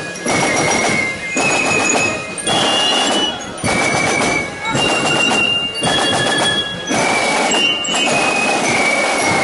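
Drum and fife corps playing a march: field drums beating under a high flute melody, the sound dipping briefly about once a second.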